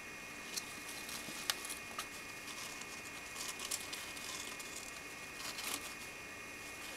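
Light rustling and scattered small clicks of small pet rodents moving about in wood-shaving bedding in a wire cage, over a faint steady high whine.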